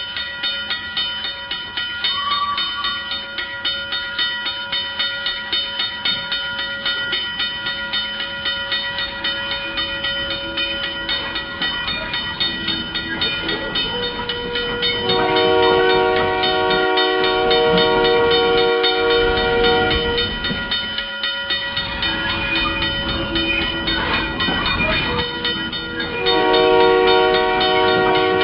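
A train sound with a steady clickety-clack rhythm. A multi-note train horn sounds from about halfway in, once more a little later, and again near the end.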